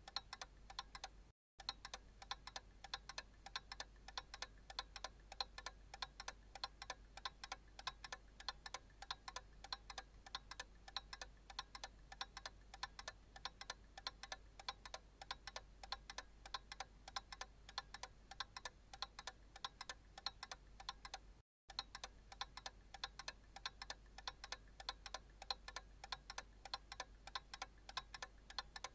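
Analog clock ticking steadily, a quick even run of small clicks over a faint low hum. The sound cuts out for a split second twice.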